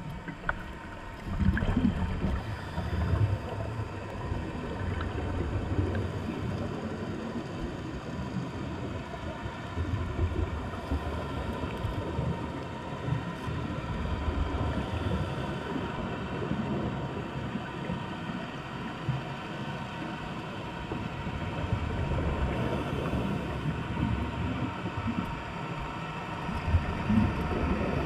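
Underwater noise picked up by a submerged camera: an irregular low rumble of moving water, with a faint steady hum throughout.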